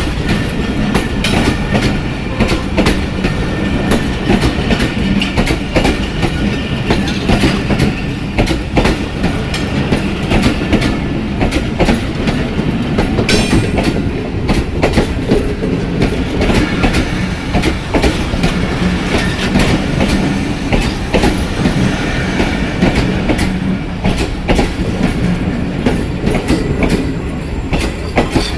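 Passenger train's coaches rolling along a station platform, wheels steadily clattering over the rail joints.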